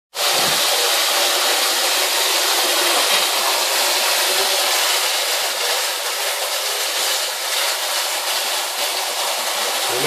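Kitchen tap running into a water-filled stainless steel sink, the stream splashing over an African grey parrot held under it: a steady hiss.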